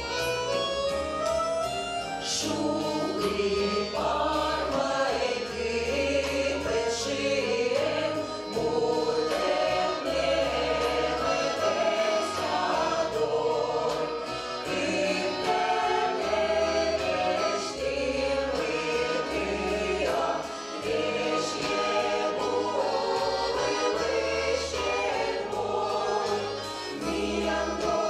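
A folk-song ensemble singing a Komi-language folk song in chorus, accompanied by a small band with drum kit and bass.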